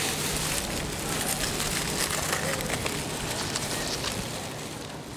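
Dry autumn leaves rustling and crackling as hands move through them, a dense run of small crackles that fades away near the end.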